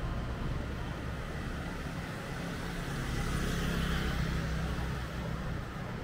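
A motor vehicle passes close by on the street over a steady rumble of traffic. It grows louder about three seconds in and fades again near the end.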